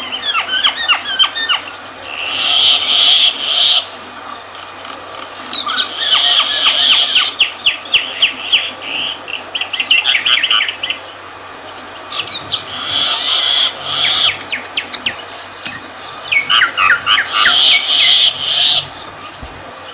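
Myna calling in about five bouts of harsh, rasping notes mixed with rapid series of short chattering notes, with short pauses between bouts.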